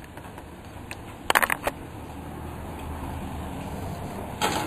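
Steady rain falling, with a car coming along the wet street and growing louder toward the end. There is a quick cluster of sharp clicks about a second and a half in, and another sharp knock near the end.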